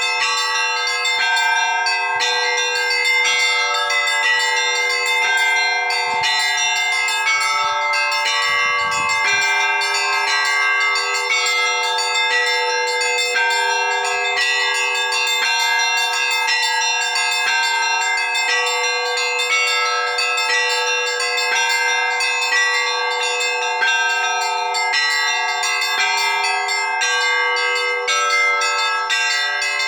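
Orthodox monastery church bells rung together in a continuous peal: quick, repeated strikes over many tones that keep ringing on.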